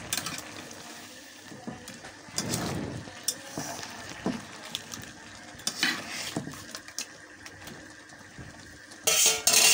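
Crab and bottle gourd curry simmering with a soft sizzling hiss in a metal karahi while a spatula stirs it, with scrapes and a few sharp clinks of the spatula against the pan. A short, louder rush of hiss comes near the end.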